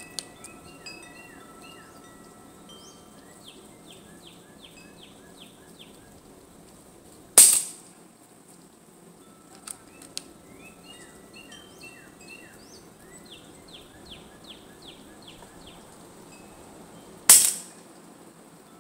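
Two sharp shots from a Hatsan Jet 2 PCP air pistol, about ten seconds apart.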